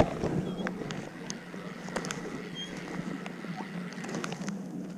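Small paddle boat under way on a lake: a steady low hum with scattered light knocks.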